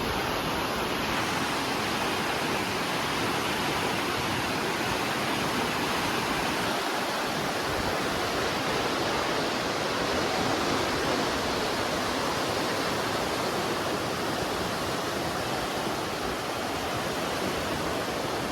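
Kiso River running high and fast after heavy rain, its floodwater rushing as a steady, even noise that does not let up.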